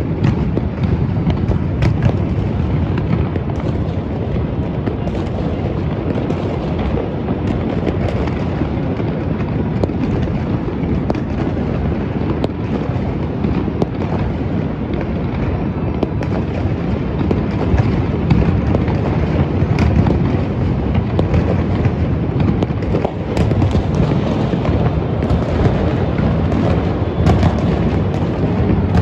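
Fireworks and firecrackers going off without pause: a dense, continuous rumble of booms from many explosions overlapping, with many sharp pops and crackles on top.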